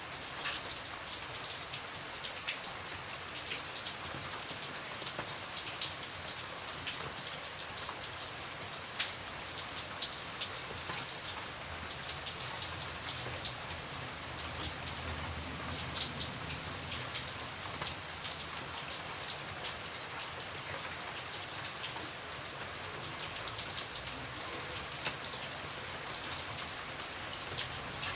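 Light rain falling steadily, with many separate drops pattering on a surface over an even hiss.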